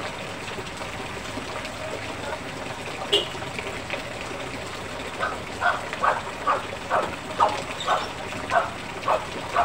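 Steady heavy rain, with runoff water pouring off the roof. In the second half a dog barks about ten times in an even rhythm, roughly two barks a second.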